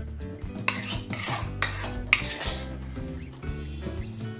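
A serving spoon scraping and knocking against a cooking pot as food is scooped out, with a few scrapes and a sharp knock in the first half.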